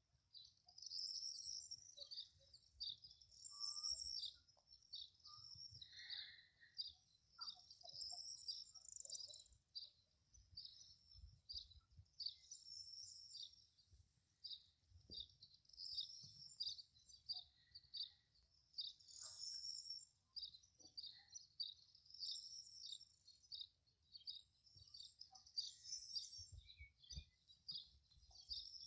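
Birdsong: a steady run of high, quick chirping phrases repeating every second or two, faint, over a light low rumble.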